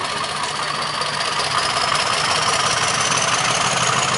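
Class 50 diesel locomotive's English Electric 16CSVT V16 engine working hard as it pulls away with its train, a high turbocharger whine climbing steadily in pitch over the engine noise. It grows louder about a second and a half in.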